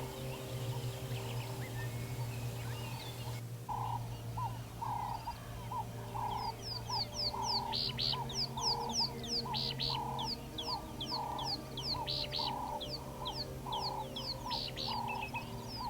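Birds calling: a repeated mid-pitched note about twice a second, with quick falling high chirps over it, starting about three seconds in. A steady low hum runs underneath.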